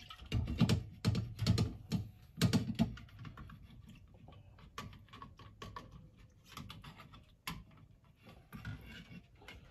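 Irregular metal clinks, knocks and scrapes as the soaked carburetor top is lifted out of a gallon can of Chem-Dip carburetor cleaner. The clatter is busiest in the first three seconds, then thins to scattered clicks, with one sharp click midway.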